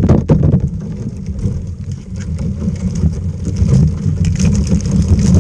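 Wind rumbling on the microphone, with a sharp knock right at the start and light clinks and rattles from a wire crab pot being handled.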